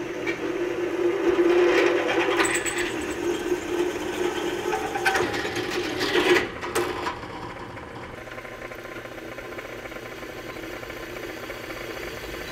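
Benchtop drill press running, its bit boring holes through a steel plate clamped in a drill-press vise: a steady motor hum with the grind of the cut. About seven seconds in it drops to a quieter, steadier run.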